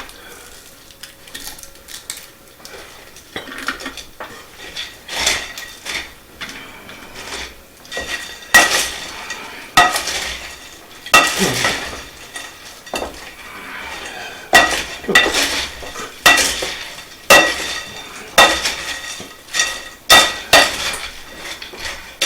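Metal utensil scraping and knocking against a pan, with irregular ringing clinks, as the cooked sausage and vegetable mixture is spooned out onto bread cubes. The clinks are soft at first and grow louder and more frequent about eight seconds in.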